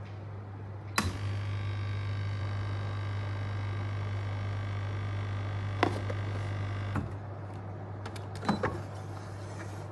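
A small electric motor starts with a click about a second in, runs steadily for about six seconds and cuts off. A few light clicks follow, over a low steady hum.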